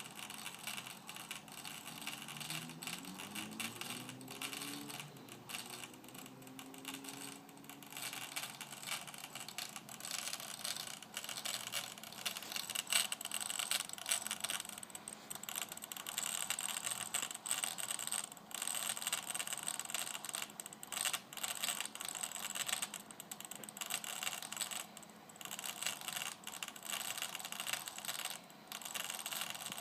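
HP Personal Media Drive external hard disk making an abnormal noise: a rising whine in the first several seconds, and rapid, irregular clicking and rattling throughout. This is the sound of a damaged, defective drive.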